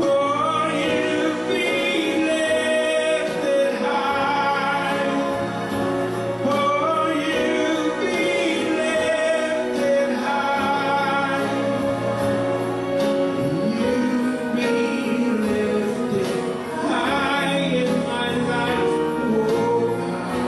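Worship song with voices singing over a steady instrumental accompaniment.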